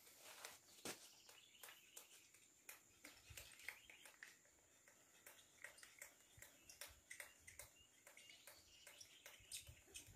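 Near silence, with faint irregular clicks and scrapes of a drill bit working into a hard wooden lath; the bit is somewhat blunt and going in slowly.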